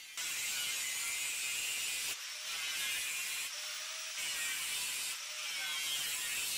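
Angle grinder with a cut-off disc slicing through the thin sheet-steel wall of an oil drum, a steady high grinding hiss that drops suddenly in level a few times, trimming the drum flush with the top layer of fire bricks.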